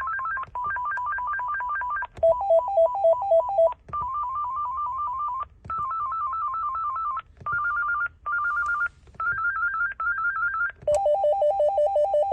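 AT&T E5960C cordless phone base playing its ringer melodies one after another as the settings are stepped through. About seven short electronic ring patterns, each a fast warble between two or three tones, with a brief break and a change of pitch between each.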